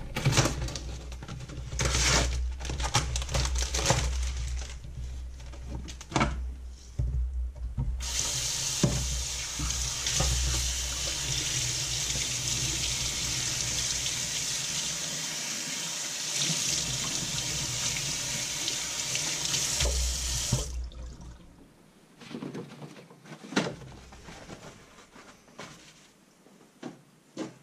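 Kitchen tap running into a metal sink as a whole raw chicken is rinsed under it: a steady water hiss that starts about eight seconds in and stops suddenly after about twelve seconds. Before it, clicks and knocks of the chicken's plastic tray being handled in the sink; after it, faint rustling as the chicken is patted dry with a towel.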